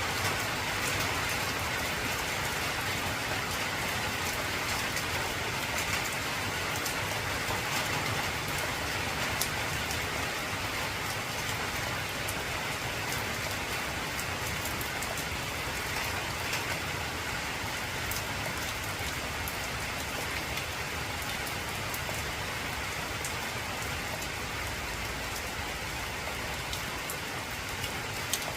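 Heavy rain falling on an old tin roof: a steady hiss with scattered sharp drop ticks.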